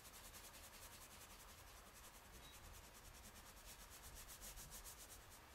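Faint scratching of a wax crayon shading across sketch-pad paper in quick, even back-and-forth strokes.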